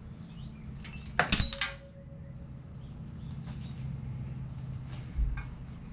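Loose metal engine parts from a disassembled ATV top end clattering and clinking as they are handled and set down: one loud metallic clatter with a short ring about a second in, small clinks after it, and a dull thump near the end.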